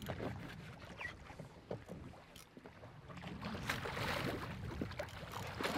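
Low rumble of the boat with water sloshing, then splashing that builds from about halfway through as a hooked tuna thrashes at the surface beside the hull.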